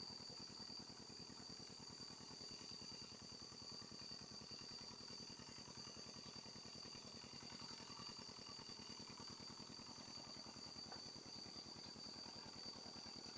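Faint, steady high-pitched drone of insects, over a low, fast, even pulsing hum.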